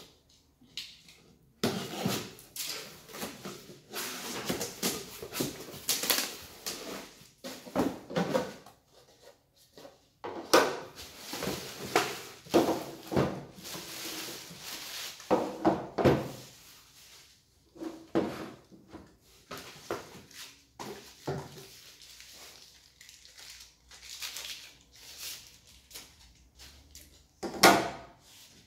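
Unboxing handling noise: clear plastic wrapping and cardboard rustling and crinkling in irregular bursts as the electric chainsaw's parts are pulled from the box, with knocks of parts set down on a wooden table and one loud knock near the end.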